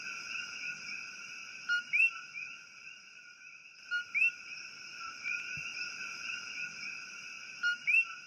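Night chorus of Puerto Rican coquí frogs: a steady high-pitched calling background with a few louder two-note "co-kee" calls standing out, the second note sweeping upward. The same few seconds of chorus repeat as a loop.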